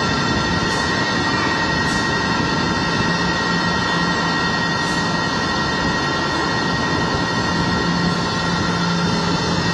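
Multi-spindle drilling and tapping machine running: a steady machine noise with a few steady high-pitched whines over it.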